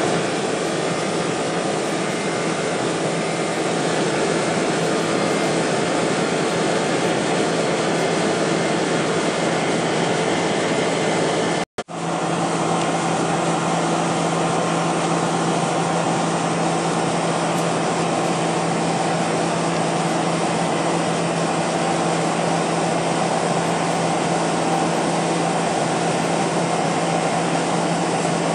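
Steady cabin noise of a Boeing 747-400 in flight, heard from a window seat: its four GE CF6-80C2 turbofans running, mixed with rushing air and a low steady hum. The sound drops out for an instant about twelve seconds in, then carries on as before.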